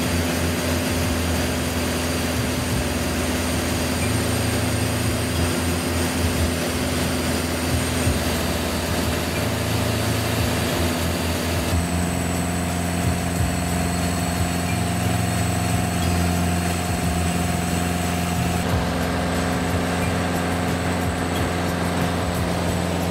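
Piper Cherokee's piston engine and propeller droning steadily, heard inside the cabin. The tone shifts a little about halfway through and again near the end.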